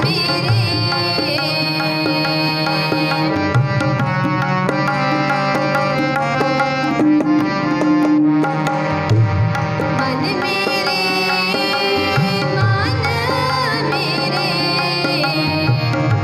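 Two harmoniums sustaining chords and melody while a tabla pair plays a quick, steady rhythm under them: Sikh kirtan accompaniment.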